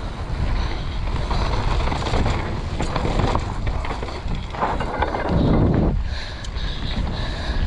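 Wind rushing over the microphone and tyre noise from a mountain bike riding fast down a dirt trail, with knocks and rattles from the bike over bumps. The rumble swells heavier just past halfway.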